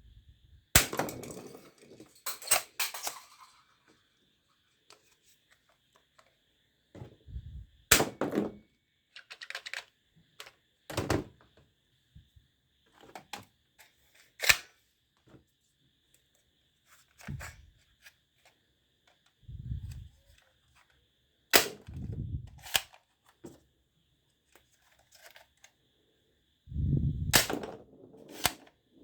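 Toy guns being handled and worked: a series of sharp plastic snaps and clicks a few seconds apart, with duller handling thumps in between and a faint steady high whine underneath.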